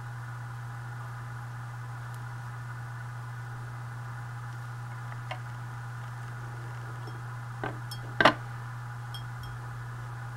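Steady background hum, with three light taps and knocks from a brush and paper swatch card being handled on a desk. The loudest knock comes about eight seconds in.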